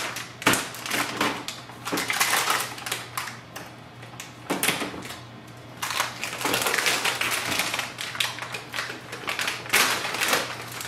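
Silver foil bag around a laser printer toner cartridge crinkling and crackling as hands pull the cartridge out of it, in uneven spells with short pauses.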